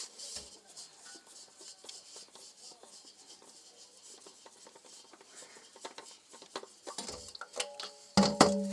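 Scattered light clicks and taps of metal parts and tools being handled, with sharper, louder clinks near the end.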